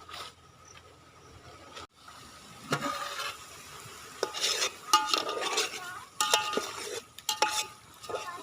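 A metal utensil stirring and scraping egg masala in a metal cooking pan, with the food sizzling. The first two seconds are quieter, then come repeated scraping strokes with a faint metallic ring.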